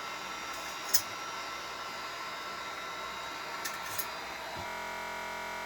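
Heat gun blowing steadily while warming a sticker's glue, with a few small clicks about a second in and near four seconds. About three-quarters of the way through, its sound settles into a steadier hum.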